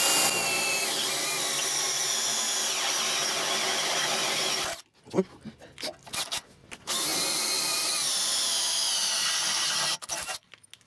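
Power drill with a 1/2-inch bit drilling out holes through a steel tractor loader bucket, in two steady runs of about five and three seconds, with a few short knocks in the pause between them.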